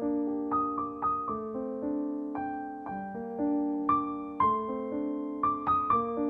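Background music: a slow solo piano piece, single notes and chords struck one after another and left to ring.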